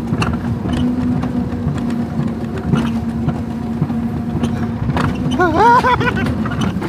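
Alpine mountain coaster sled running down its tubular steel track: a steady rumble with a constant hum from the wheels on the rails and many small rattling clicks. About five and a half seconds in, a rider's voice cries out briefly with a wavering pitch.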